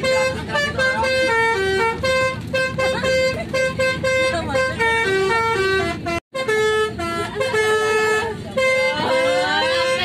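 Indonesian bus 'telolet' musical air horn playing a stepping multi-note tune over and over, with the sound dropping out for an instant just past halfway.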